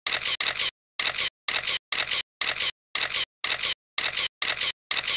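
Intro sound effect: a rhythmic train of short, hissy noise bursts, about two a second, each starting and stopping sharply with silence between.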